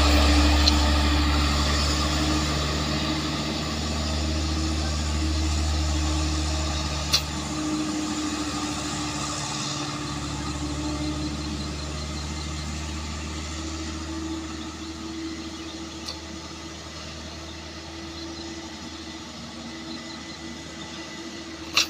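Heavily loaded Mitsubishi Colt Diesel truck's diesel engine pulling steadily up a steep grade, fading as the truck climbs away.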